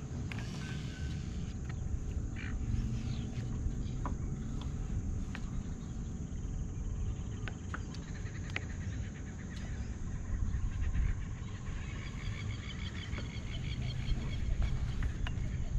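Steady low rumble of wind and water around a kayak on open water, with a few light clicks and, near the end, a run of rapid high chirps.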